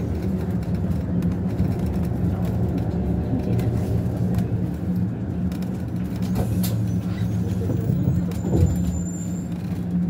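Steady low hum of a moving road vehicle, engine and road noise while driving, with scattered faint clicks and rattles and a brief thump near the end.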